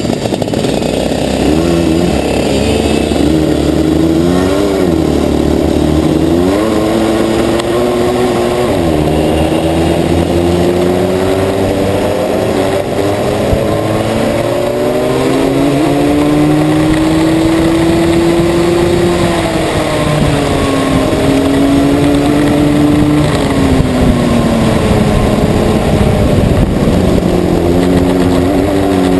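Two-stroke racing kart engine at close range, its pitch climbing steadily through the gears-free rev range along each straight and dropping sharply when the driver lifts off, about six times.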